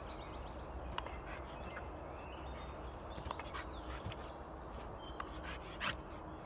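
Faint bird chirps over a low steady rumble, with a scattered handful of short sharp taps and clicks, the loudest about six seconds in.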